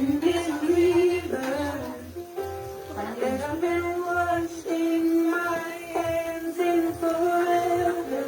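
A song with a sung melody of long held notes over an accompaniment with a steady low beat.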